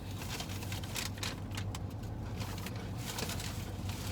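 Eating sounds: chewing and short clicks and rustles of food and packaging, over a steady low hum.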